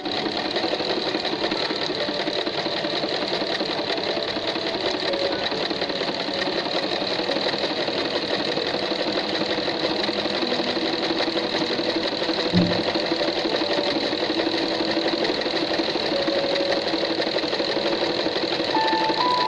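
Usha Janome Wonder Stitch Plus electric sewing machine running steadily at speed, a fast even chatter of needle strokes, with a single knock about two-thirds of the way through.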